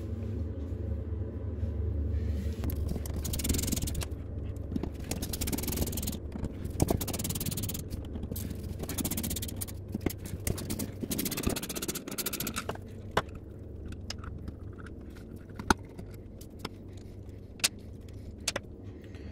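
A small hand ratchet with a Torx bit undoing the screws on an aluminium BMW vacuum pump cover, with rattling clicks and metal scraping for most of the time. Near the end come a few separate sharp clicks as the screws and tools are set down on the stone worktop.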